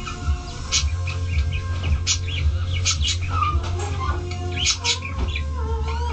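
Many short, high chirps and squeaks of small animals, several a second, over a steady low hum.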